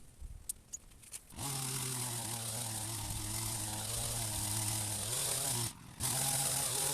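Powered hedge trimmer starting up about a second and a half in and running steadily while cutting back a berberis hedge. It cuts out briefly near the end and starts again.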